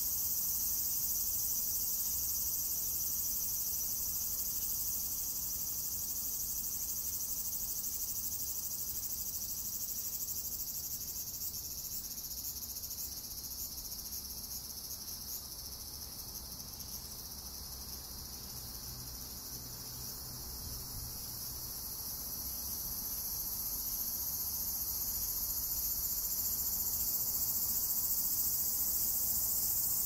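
Cicadas singing in a continuous high-pitched chorus. It dips a little about halfway through and swells again near the end.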